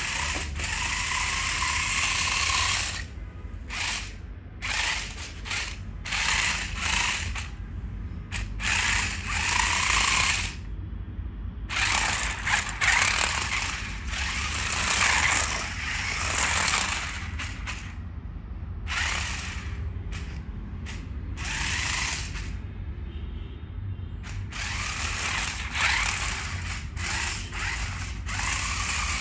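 Toy RC car's small electric motors and plastic gearbox whirring in stop-start runs, some under a second and some several seconds long, as the car is driven about.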